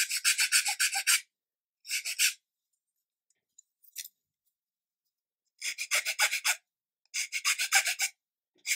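A small metal hand file rasping along the edge of a laser-cut MDF part in several short bursts of quick back-and-forth strokes, smoothing off the nibs left where the part was attached to its sheet.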